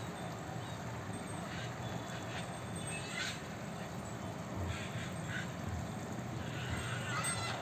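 Short animal cries, several times over, with a cluster of gliding calls near the end, over a steady outdoor background noise.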